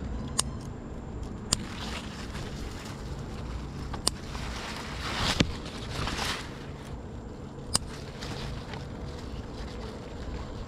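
Scissors snipping bean pods off the plants: a few scattered sharp clicks, with leaves rustling in a couple of short swells about halfway through, over steady low wind noise on the microphone.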